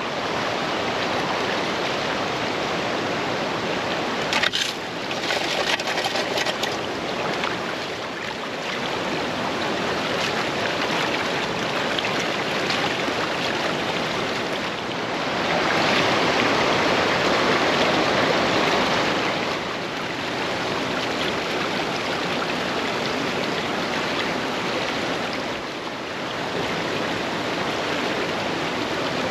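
Fast, wild mountain stream rushing steadily. A run of sharp clicks comes about four to seven seconds in, and the water grows louder from about fifteen to nineteen seconds.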